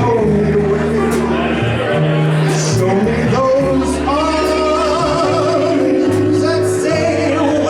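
Live band music with keyboard: a melody line over a stepping bass line, continuing between the vocal phrases of the ballad.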